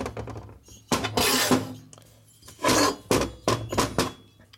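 Cast-iron Harley Sportster cylinder barrels being handled on a workbench: a few clunks, clinks and scrapes as they are picked up, turned over and set down.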